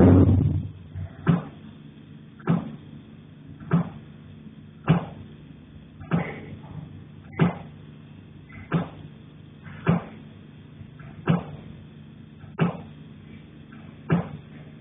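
Knocking from the attic overhead: sharp, evenly spaced knocks about one every 1.2 seconds, the first the loudest. A steady low hum runs underneath.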